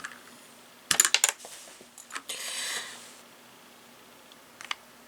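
Plastic keycaps clacking on a Royal Kludge RK100 mechanical keyboard: a quick run of sharp clicks about a second in, a short scraping rustle a little later, and two faint clicks near the end.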